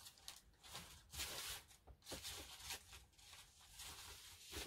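Faint rustling and shuffling of sheets of craft paper being rummaged through, in irregular bursts, with a light knock near the end.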